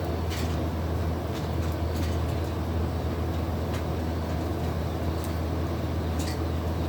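A steady low engine drone that holds at an even level throughout, with a few faint sharp ticks scattered over it.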